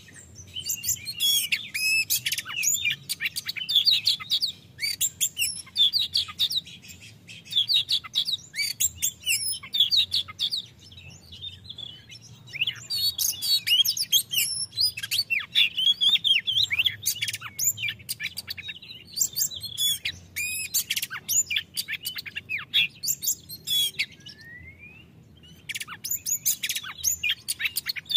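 Male Oriental magpie-robin singing its loud, varied song: fast runs of whistles and chirps in phrases broken by short pauses, with a single rising whistle just before the last phrase.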